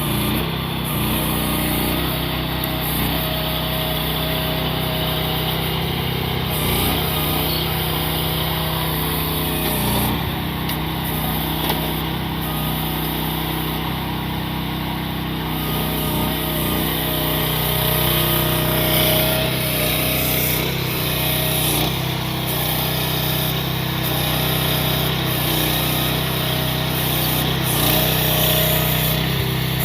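The mini excavator's 420 cc air-cooled gasoline engine running steadily, with small rises and falls in level.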